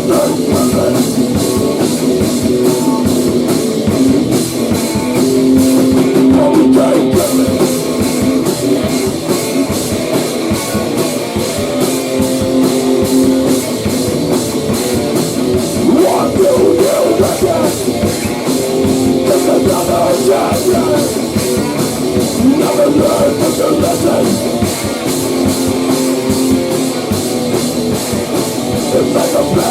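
A rock band playing an instrumental grunge/hardcore passage: electric guitar over a drum kit keeping a steady beat, with no vocals.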